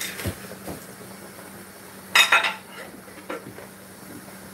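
Pots and dishes clinking and clattering as they are put into a kitchen sink, a few separate knocks with the loudest clatter about two seconds in, over a faint steady low hum.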